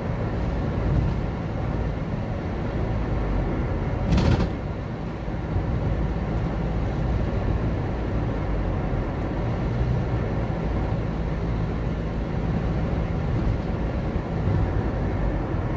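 Steady engine and tyre rumble heard inside the cabin of a moving car, with a single brief knock about four seconds in.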